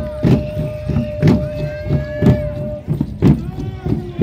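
Parade drums carried by the comparsa dancers beating a steady march, one heavy stroke about every second with lighter strokes between. Over them a long held high note stops about three seconds in, with other pitched sounds sliding downward.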